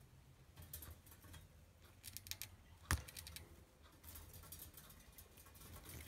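Budgie gnawing on a mineral block, its beak scraping and nibbling in faint quick clusters of scratchy clicks, with one sharper knock about three seconds in.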